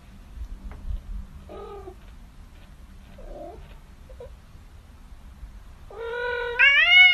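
Kitten making a few faint short mews, then one long loud meow near the end that rises and falls in pitch.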